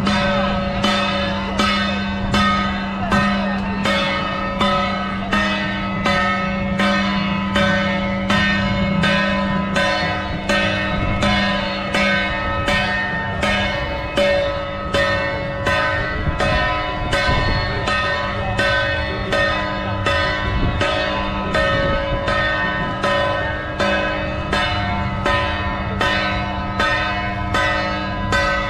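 Struck metal percussion, bell-like, beaten at a steady pace of about three strokes every two seconds, each stroke ringing into the next, over crowd noise.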